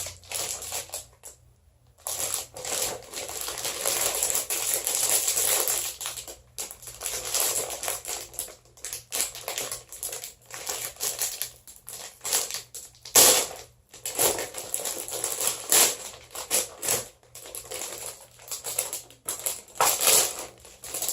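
Plastic candy packaging crinkling and crackling as it is opened and handled, in irregular bursts. There is a short pause about a second in, and a sharp crackle near the middle is the loudest.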